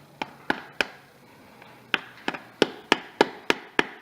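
Light hammer taps on a seal-driver sleeve, driving the Tiptronic transmission's torque converter (pump) seal into its bore. There are four quick taps, a pause of about a second, then steady tapping at about three a second. The seal is going in unevenly, one side sooner than the other.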